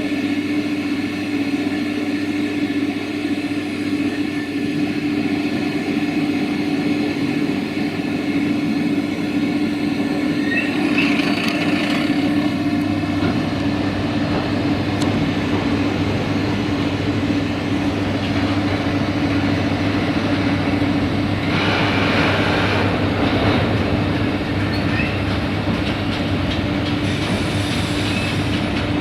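Class 480 electric freight locomotive with its train moving slowly, giving a loud steady hum over a running rumble. Brief high-pitched wheel squeals come about ten seconds in, again a little past twenty seconds, and near the end.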